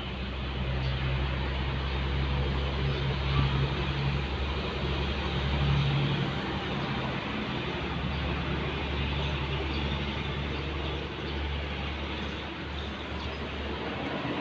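A motor running with a steady low hum that eases off about eleven seconds in.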